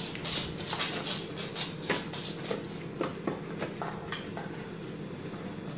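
A dog biting into and chewing a slice of watermelon: a run of irregular wet crunches and smacks, busiest in the first two seconds, then sparser.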